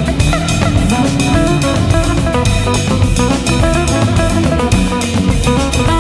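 Background music with a drum kit keeping a steady beat under guitar.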